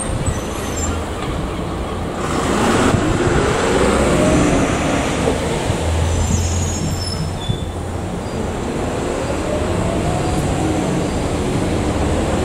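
Diesel passenger train approaching along the platform at low speed, its engine note rising and falling in pitch twice over a steady rumble of the train.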